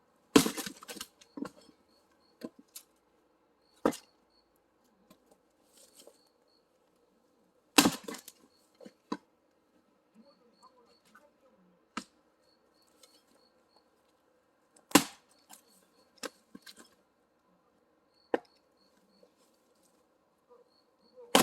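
An axe splitting firewood: four heavy strikes about seven seconds apart, each followed by smaller knocks of split wood falling and being handled.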